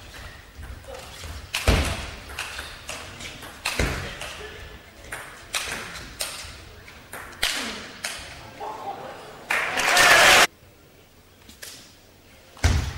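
Table tennis rally: the celluloid ball clicking off the bats and the table in irregular sharp strokes. About two-thirds through, a brief loud burst of crowd cheering cuts off suddenly, and another hard ball strike comes near the end.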